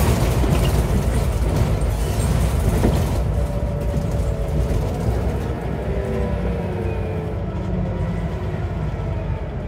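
Scania DC9 9-litre diesel and ZF Ecomat five-speed automatic gearbox of a Scania N94UB bus, heard from inside the passenger cabin: a steady low engine rumble, with a whine that falls steadily in pitch from about four seconds in as the bus slows.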